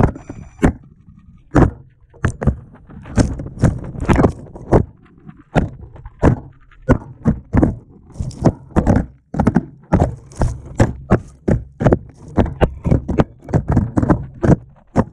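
FPV quadcopter carrying a GoPro Session 5 tumbling down a rocky scree slope, giving a long series of sharp knocks and clatters as it strikes rock again and again. The knocks are irregular at first and come faster, about three a second, in the second half. Its motors are silent: the flight controller had failed in the air, which caused the crash.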